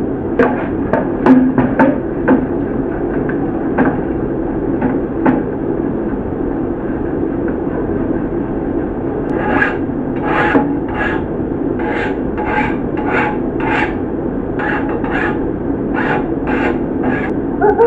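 Red-hot steel knife blade being quenched: from about halfway on, a run of short hissing sizzles, about two a second, as the blade is worked in the quench. Under it runs a steady rushing noise, with a few clicks and knocks in the first seconds.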